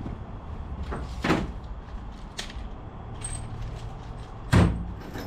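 A few clunks and knocks of tools and parts being handled and set down, the loudest about four and a half seconds in, over a low steady hum.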